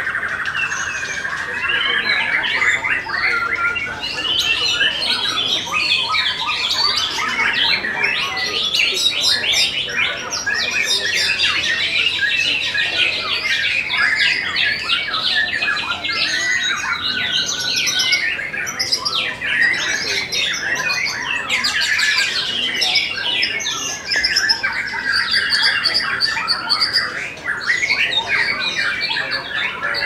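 White-rumped shama (murai batu) singing loudly and without pause: a dense, fast stream of varied whistles, rapid trills and harsh chattering notes.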